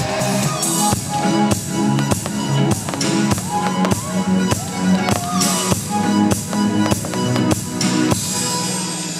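Music with a steady drum beat, about two beats a second, under a pitched melody: the soundtrack playing along with a fireworks display.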